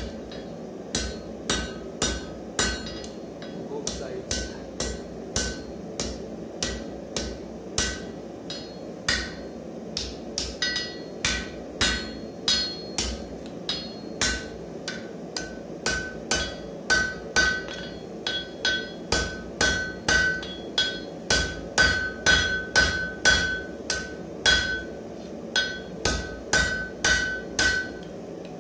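Hand hammer striking red-hot steel bar stock on an anvil, forging, in steady blows about two a second. Each blow gives a short metallic ring, and the blows grow louder about halfway through. A steady low hum runs underneath.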